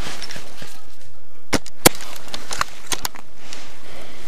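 Airsoft bolt-action sniper rifle giving a string of sharp clicks and knocks, about five, the loudest just under two seconds in.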